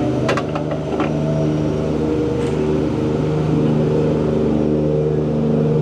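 Jungle Cruise tour boat's motor running steadily with an even hum, with a few sharp clicks in the first second.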